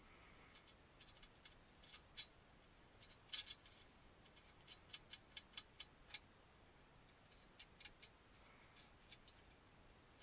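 Faint sharp clicks and ticks of small screws, nuts and a hand tool working on a model car's chassis plates, including a quick run of about six clicks midway.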